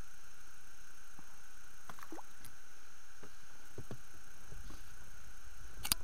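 A pike splashing and thrashing as it is scooped into a landing net and lifted from the water, with small splashes and drips and low handling bumps, and one sharp click near the end, over the steady hiss and hum of the camera.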